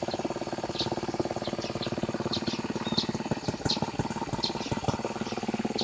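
Engine of a tractor ploughing a rice paddy, running steadily with a rapid, even beat. Small birds chirp repeatedly over it.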